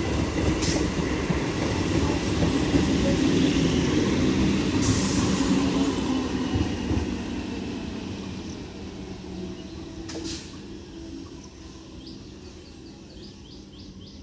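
Electric multiple unit local train running past on the rails: a steady wheel-on-rail rumble with a few sharp clicks, fading from about seven seconds in as the rear of the train draws away.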